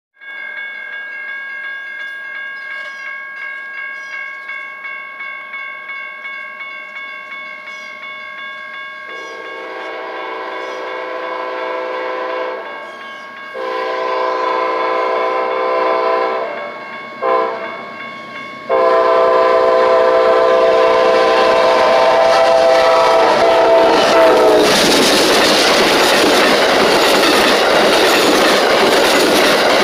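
Grade-crossing bell ringing in a steady rhythm, then an Amtrak passenger train's horn blowing the long, long, short, long crossing signal as it approaches. The train then passes over the crossing with a loud rush and wheel clatter.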